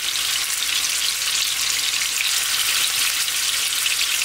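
Mini seekh kebabs of spiced ground beef frying, with a steady sizzle full of fine crackling.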